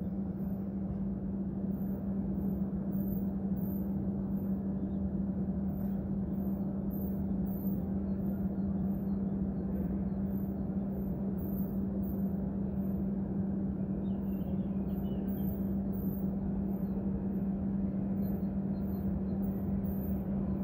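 A steady low hum and rumble holding one constant tone, with faint high chirps of small birds now and then.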